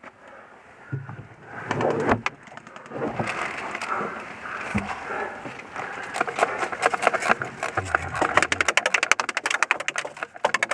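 Airsoft guns firing, a fast rattle of sharp clicks that starts about halfway through and grows denser toward the end.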